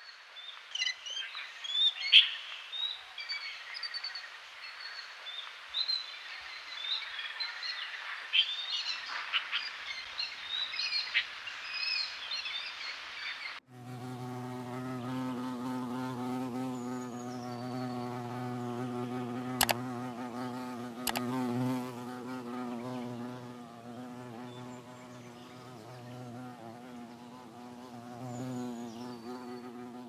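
Birds chirping, many short high calls over a faint hiss; then, after a sudden cut about halfway through, a bee buzzing steadily. Two sharp clicks sound a second and a half apart in the buzzing.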